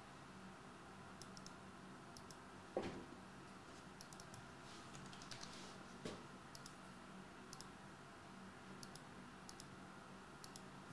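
Near silence with a low steady hum, faint scattered clicks, and a soft bump about three seconds in.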